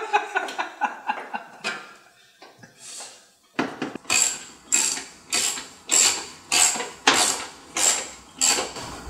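Laughter for the first two seconds, then a hand socket ratchet tightening a wing mounting bolt: about nine quick strokes, one every half second or so, each a short burst of ratchet clicking.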